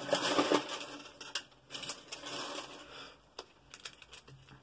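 Plastic crinkling and clicking as hands peel and pry open the layered plastic ball of an L.O.L. Surprise doll, with a few sharp clicks between two stretches of crackle.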